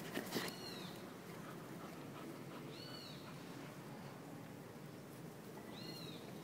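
Bernese mountain dog puppy whining in three short high-pitched cries, each rising then falling, about three seconds apart, during rough play with a littermate. Two sharp knocks come right at the start.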